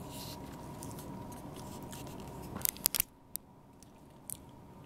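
Cat eating from a dish: a quick cluster of sharp crunching clicks about two and a half seconds in, and a couple of single clicks after, over a steady low background.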